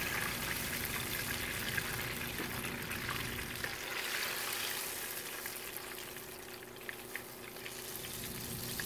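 Battered banana fritters deep-frying in a pan of hot oil, a steady sizzle that eases somewhat in the second half. There are a couple of light clicks about seven seconds in.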